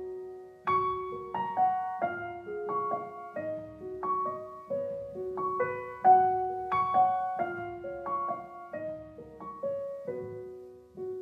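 Soft background piano music: a slow melody of single struck notes that each fade away, with a new phrase starting about six seconds in.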